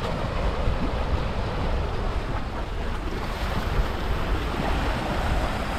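Rough sea waves washing in steadily, whipped up by the strong winds of a No. 3 typhoon signal, with wind buffeting the microphone.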